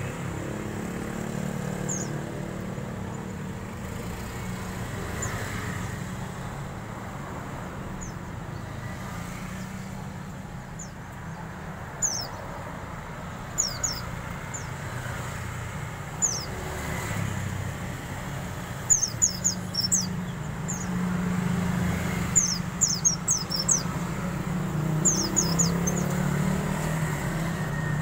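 A caged white-eye (pleci) giving short, high chirps. They are sparse at first, then come in quick clusters of several notes from about two-thirds of the way in. A steady low hum runs underneath.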